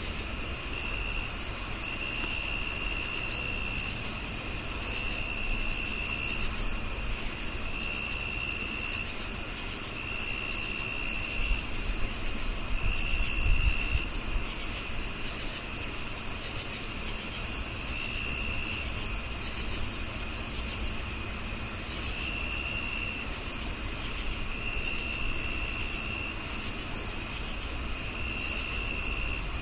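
Crickets chirping in a night chorus: a steady high-pitched trill, a regular chirp about two to three times a second, and a lower trill that comes and goes in stretches of a second or two. A faint low rumble runs underneath.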